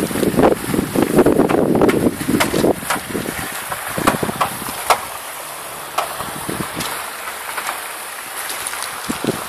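Wind buffeting the microphone, heaviest in the first three seconds and easing after, with scattered sharp clicks and knocks.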